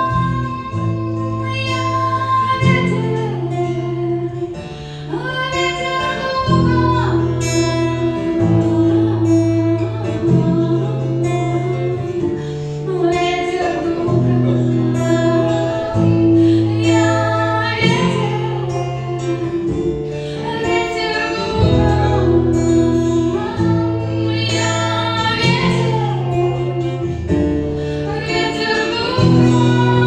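A woman singing a Christian worship song while playing an acoustic guitar, the chords changing every second or two under her melody.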